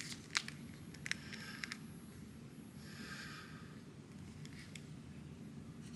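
Small plastic clicks from an articulated action figure's joints being posed by hand, a few in the first two seconds, then a brief soft rustle about three seconds in, over a low steady room hum.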